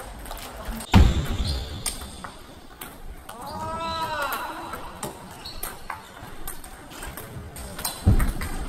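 Table tennis balls clicking irregularly off bats and tables across a busy hall, with two heavy thumps, one about a second in and one near the end, and a short pitched voice call in the middle.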